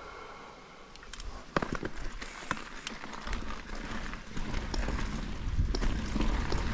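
Mountain bike riding a dirt trail: irregular clicks and rattles of the bike and tyres over the ground from about a second in, with a low rumble building from about three seconds in as it gathers speed.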